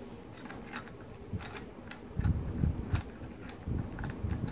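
Irregular light metallic clicks of steel cassette sprockets being slid onto and lined up on the hub's splines by hand, with a few dull knocks from handling the wheel in the second half.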